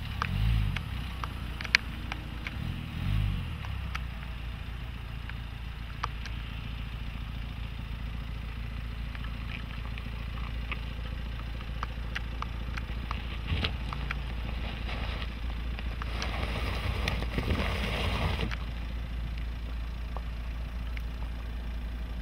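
Nissan X-Trail's 1.6 dCi four-cylinder diesel engine running at low revs as the SUV crawls along a grassy forest track. Its pitch wavers over the first few seconds, scattered clicks come from under the tyres, and there is a louder stretch of noise about sixteen seconds in.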